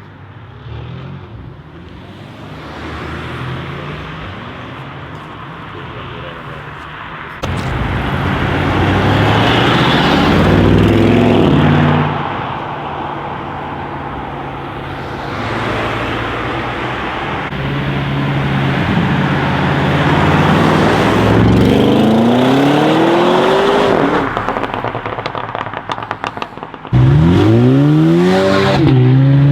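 Tuned Audi RS6 C8's twin-turbo V8 through an Akrapovic exhaust, loud, climbing in pitch several times as it revs and accelerates, with a steadier stretch in the middle. Near the end comes a quick run of exhaust crackles, then a sudden loud acceleration.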